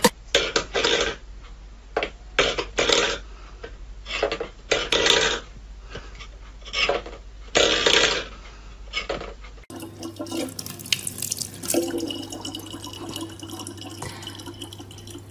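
About half a dozen separate clattering knocks, then, after about ten seconds, a thin stream of tap water running steadily into a plastic bottle.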